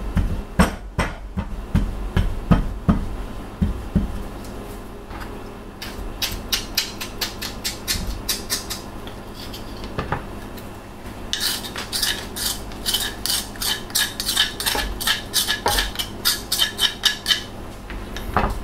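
Kitchen knife chopping a piece of palm sugar on a cutting board: a string of heavy knocks, about two or three a second, for the first few seconds. After that comes quicker, lighter clatter as a small bowl is scraped out into a stainless steel pan.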